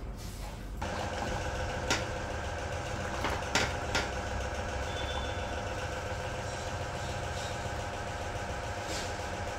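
A steady machine hum starts about a second in and runs on. Over it come a few sharp knocks, several of them a wooden ladle stirring in a steel pot of sambar.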